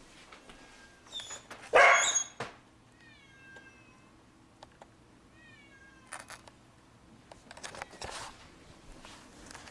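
Domestic cat meowing: one loud meow about two seconds in, then two shorter meows a couple of seconds apart. A few clicks and knocks follow near the end.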